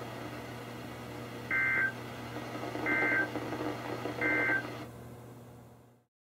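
Three short EAS/SAME end-of-message data bursts from a NOAA Weather Radio broadcast, heard through a weather radio's speaker: buzzy chirps about a third of a second long and about a second and a half apart, signalling the end of the warning message. A steady low hum runs beneath, and the sound cuts off near the end.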